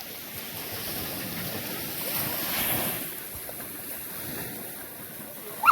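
Ocean surf washing onto the beach, with wind on the microphone; the wash swells about two seconds in. Near the end comes a short, loud, high-pitched cry.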